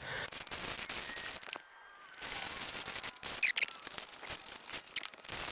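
Scattered sharp clicks and knocks over a scratchy hiss, with a short near-silent gap about two seconds in and a cluster of louder clicks a little after three seconds.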